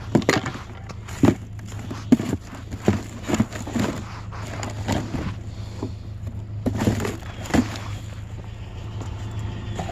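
Irregular knocks, clunks and clatters, as of junk being picked up and handled by hand, over a steady low hum.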